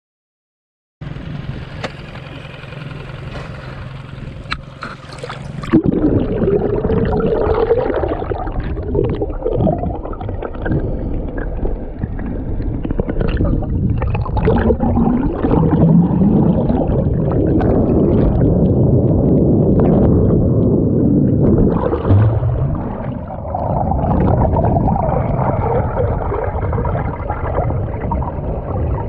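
Water sloshing and gurgling around a camera held underwater in the sea, an uneven churning that starts suddenly about six seconds in as the camera goes under. Before that comes a steady low hum.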